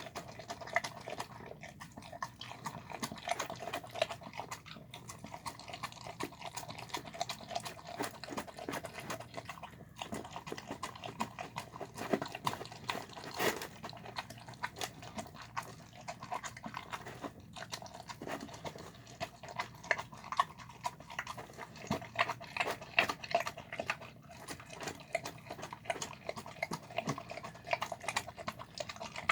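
A dog eating wet chicken-and-rice slop from a bowl: continuous rapid wet smacking, lapping and chewing.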